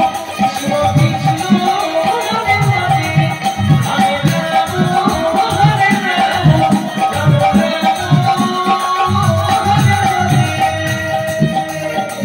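Instrumental passage of Bengali kirtan music between chanted lines: steady, rhythmic hand-drum beats with jingling small cymbals and a held tone underneath.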